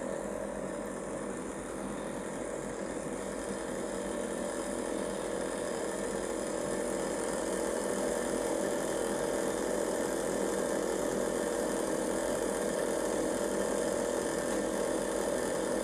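Air compressor running steadily, pressurising the rocket's pressure chamber for launch, getting slightly louder as the pressure builds.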